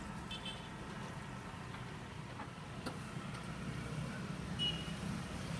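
Street traffic: a motor vehicle engine running steadily at a low idle, with two short high chirps, one near the start and one near the end.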